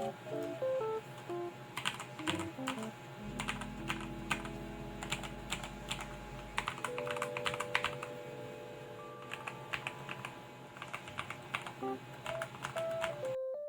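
Rakk Ilis budget mechanical keyboard with Outemu Red linear switches being typed on: an irregular run of quick keystroke clicks, some in fast clusters, over soft background music.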